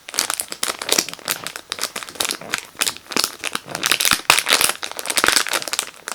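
Crinkly plastic packaging of a squishy toy being handled and crumpled: a dense, irregular run of crackles with no pauses.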